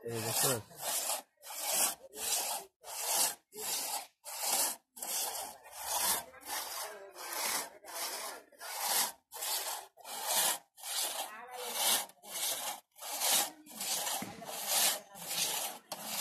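Two-man crosscut saw pulled back and forth through the trunk of a standing tree near its base, a rasping stroke about twice a second, each push and pull as one even sawing rhythm.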